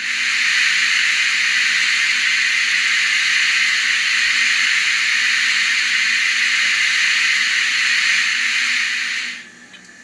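Steam-release hiss from the LokSound Micro v4 sound decoder, played through the Lemke BR 02 N scale model's small Knowles speaker: one long, even hiss that starts suddenly and cuts off about nine and a half seconds in.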